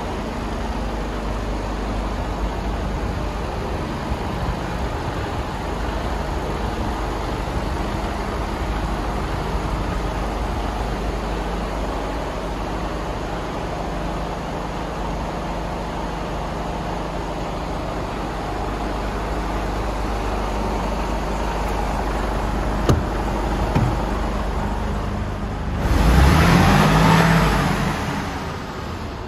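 Mercedes Actros 2445's 12.8-litre straight-six diesel idling steadily with a low hum. About two seconds of louder rushing noise come near the end.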